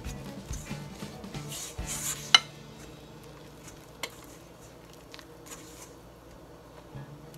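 A spoon scraping and stirring in a mixing bowl as flour is spooned into cookie batter. There is a sharp clink of the spoon against the bowl a little over two seconds in and a lighter tap about four seconds in.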